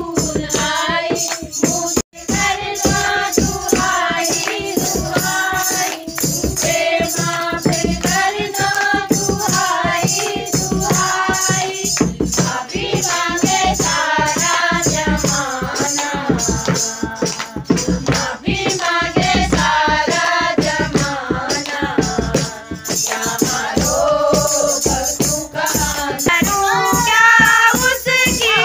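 A group of women singing a devotional song together, with steady hand clapping and a shaken handheld clapper keeping the beat.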